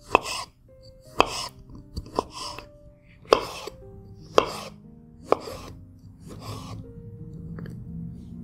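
A kitchen knife slices pitted black olives into rings on a bamboo cutting board. The blade taps sharply against the board about once a second, with a short scrape as it goes through each olive. Soft background music plays underneath.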